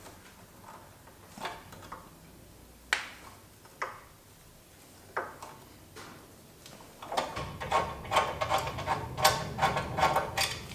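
Hand riv nut tool setting a rivet nut into a drilled hole in the rear bar: a few separate metallic clicks, then from about seven seconds in a quick run of ratcheting clicks as the tool is worked.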